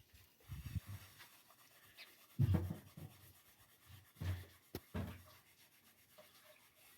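A few scattered soft knocks and rubbing sounds, with one sharp click just before the five-second mark.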